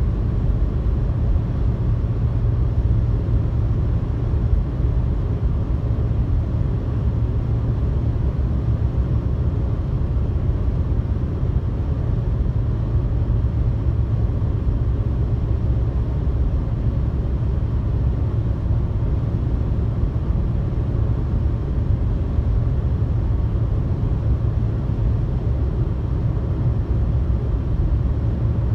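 Steady road noise inside a car cruising at highway speed: a low tyre and engine rumble with a fainter hiss above it.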